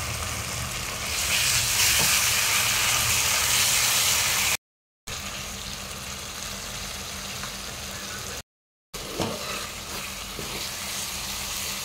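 Onion, tomato and spice-paste masala sizzling in hot oil in a non-stick kadai while it is fried down, with a spatula stirring and scraping through it. The sizzle is louder for the first few seconds. The sound cuts out completely twice, briefly.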